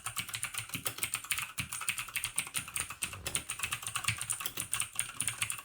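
Fast typing on an ABKO K570 mechanical keyboard with blue (clicky) switches: a rapid, continuous stream of sharp clacking keystrokes.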